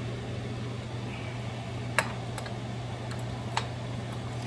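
Three sharp light clicks of kitchen utensils being handled, over a steady low hum.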